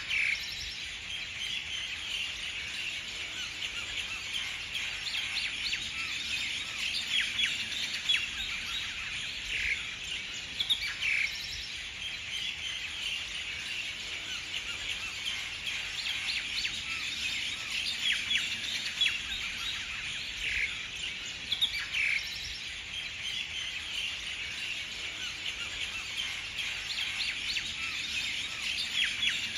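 Dense, continuous chirping of many small birds, with a few louder chirps standing out now and then.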